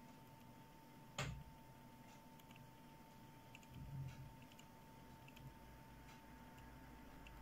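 Near-silent room with a faint steady hum, broken by one sharp click about a second in and a few faint ticks after it, fitting a computer mouse being clicked and its wheel scrolled. A soft low bump comes near the middle.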